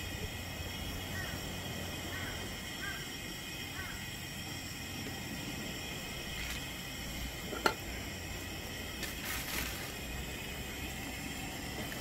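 Raw whole chicken being handled in a plastic bag: light handling noise with one sharp click a little past halfway and a short rustle soon after, over a steady outdoor background with a few faint high chirps in the first few seconds.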